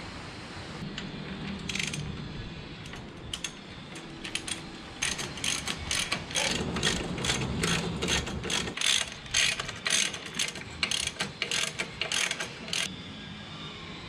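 Hand socket ratchet clicking through a long run of short turning strokes, about two clicks a second. The clicking starts about five seconds in and stops near the end, after a few seconds of low handling noise.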